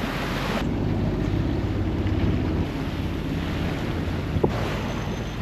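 Wind buffeting the microphone over water rushing and slapping along the hull of a sailboat under way at sea, with one short knock about four and a half seconds in.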